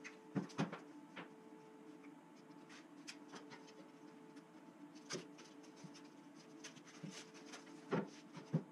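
Hands sorting sandpaper sheets and sanding pads on a cluttered workbench: scattered light knocks and rubbing, twice just after the start, once midway and twice more near the end, over a faint steady hum.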